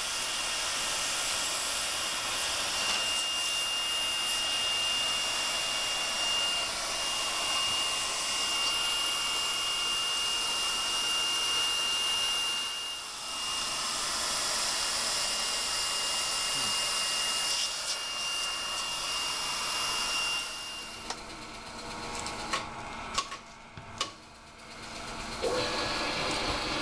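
Leister hand-held hot-air gun blowing steadily, with a thin high whine over the rushing air and a brief dip about halfway. It stops after about 21 seconds, followed by a few sharp clicks, and a steady blowing noise starts again near the end.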